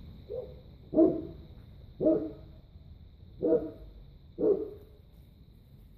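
Landseer puppy barking: a faint short yelp, then four loud barks about a second apart.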